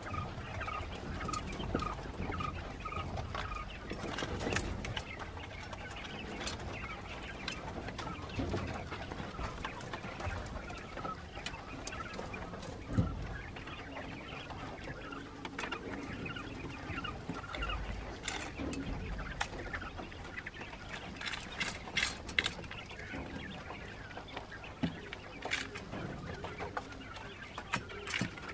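A flock of young quails chirping and peeping, with a run of short repeated peeps, about three a second, in the first few seconds, then scattered calls and a few sharp ticks.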